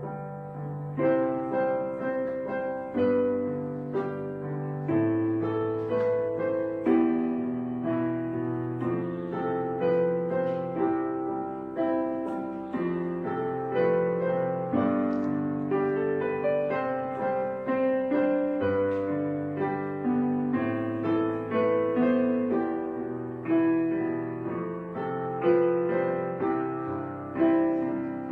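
Gentle solo piano background music, notes and chords struck about once a second, each ringing and fading.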